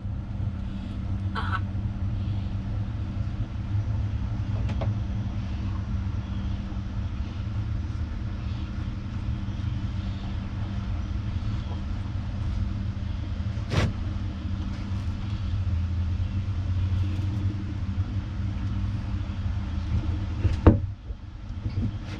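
Steady low motor hum, with two brief sharp clicks about 14 and 21 seconds in.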